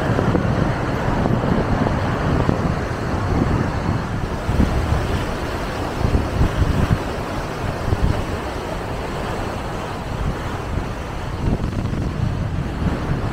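Steady rushing of the swollen, fast-flowing floodwater, with wind buffeting the microphone in uneven low gusts.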